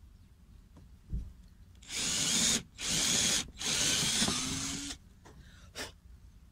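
Cordless drill boring a small pilot hole in a thin wooden strip, running in three short bursts with brief pauses between them, the last burst the longest.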